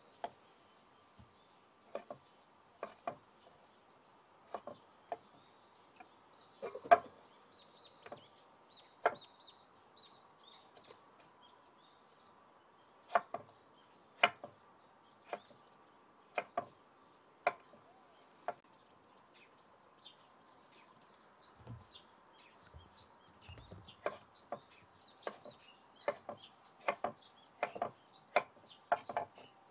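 Kitchen knife slicing through a boiled bamboo shoot and knocking on a wooden cutting board: single cuts every second or two, then quicker cuts in the last few seconds. Faint bird chirps in the background.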